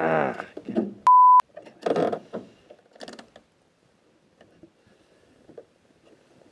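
A loud, steady censor bleep, a flat 1 kHz tone about a third of a second long, about a second in, covering a swear word. Just before it comes a drawn-out voice exclamation falling in pitch, and another short exclamation follows about a second after.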